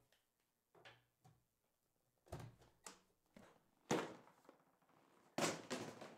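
Items being handled and set down on a table by hand: a series of knocks and thuds, the loudest about four seconds in and another cluster near the end.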